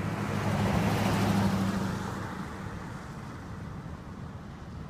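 A vehicle driving past, with a hiss that swells to its loudest about a second in and fades away over the next two seconds.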